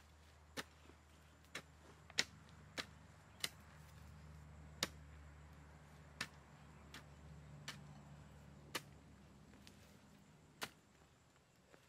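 A wooden-handled hoe chopping into garden soil, a dozen or so sharp strikes at an uneven pace, roughly one a second, over a faint low hum.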